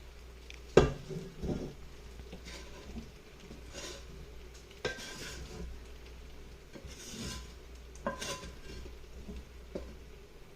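A cooking utensil scraping and knocking against a pan and pot while browned ground beef mixture is transferred into a pot of pasta. There is a loud clank about a second in, then several more knocks with soft scraping between them.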